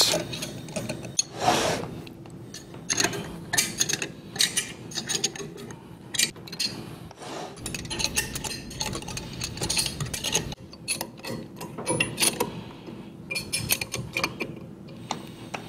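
Wrench tightening the nuts and lock washers on the studs that hold a pneumatic actuator to its mounting bracket: a string of irregular metal clicks and scrapes.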